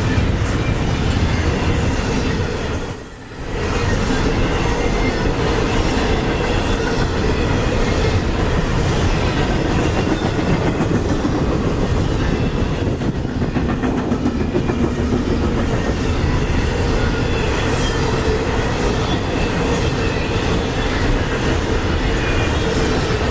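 Intermodal freight train rolling past at close range, its wheels clattering steadily over the rail joints, with a brief high wheel squeal about two seconds in.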